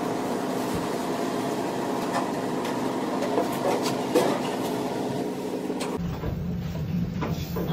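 Steady mechanical hum of kitchen machinery, with a few light knocks as a knife works through a tuna loin on a plastic cutting board. About six seconds in the hum changes abruptly to a lower drone.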